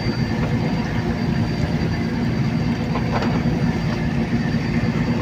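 Fishing boat's engine running steadily: a constant low drone with a faint, steady high whine above it.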